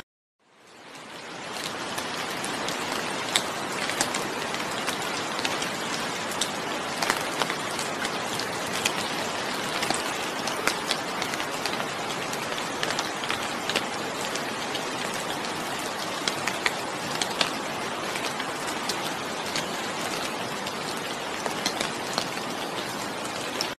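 Steady rainfall: a dense hiss with many individual drops ticking sharply on a surface. It fades in from silence over the first couple of seconds and cuts off abruptly at the end.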